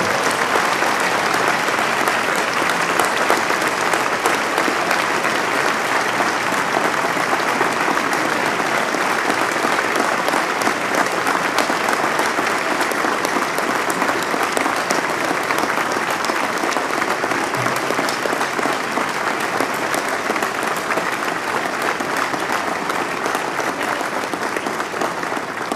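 Large crowd applauding, a dense steady clapping that eases off near the end.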